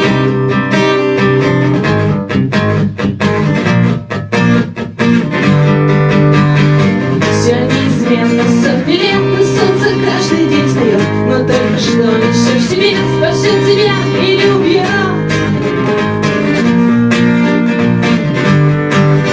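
Acoustic guitar playing an instrumental passage of a song, strummed chords with a melodic line over them in the middle, and a few short breaks in the strumming early on.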